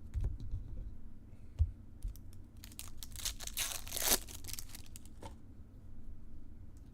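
A trading-card pack's foil wrapper being torn open and crinkled, with scattered handling clicks; the longest tearing noise comes about three and a half to four seconds in.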